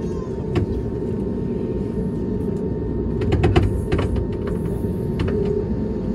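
Cabin noise of an Airbus A320neo taxiing, heard from a window seat: a steady low rumble from the engines and airframe, with a cluster of sharp clicks and knocks about three to four seconds in.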